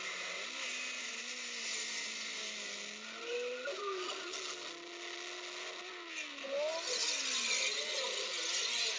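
Racing car engines revving hard as the cars climb a hill-climb course, the engine note rising and falling several times as they shift and take the bends. The sound is louder in the second half.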